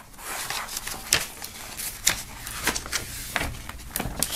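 Folded paper being handled and opened out: rustling with a quick string of short crackles as a folded poster is unfolded.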